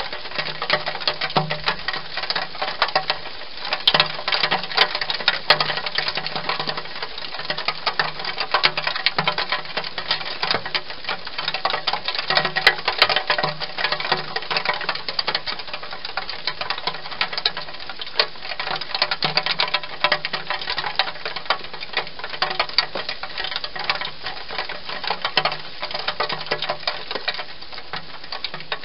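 Wild hedgehog eating from a bowl: a continuous, fast, irregular run of small crunching and smacking clicks.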